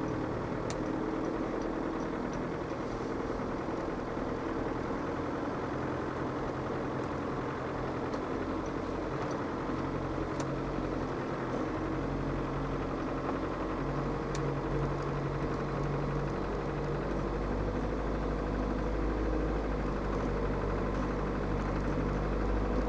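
Land Rover Defender 110's 300Tdi 2.5-litre four-cylinder turbodiesel running steadily as the vehicle creeps down a steep snowy descent, heard from inside the cab. A deeper rumble builds in the second half, with a few faint clicks.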